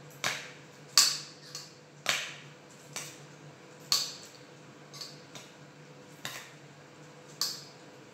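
About ten sharp metallic clinks against a stainless steel bowl, roughly one a second, each ringing briefly, the loudest about a second in. They come from hands working a zucchini over a bowl of rice filling while stuffing it. A faint steady hum runs underneath.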